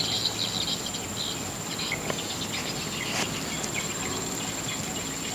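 Insects calling outdoors: one steady, high-pitched drone, with scattered short chirps over it.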